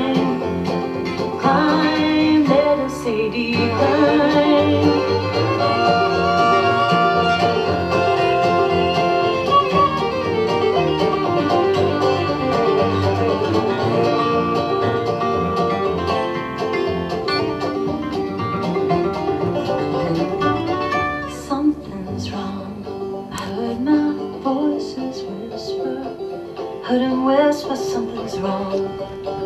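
Background music in a bluegrass style, played on string instruments, with no speech.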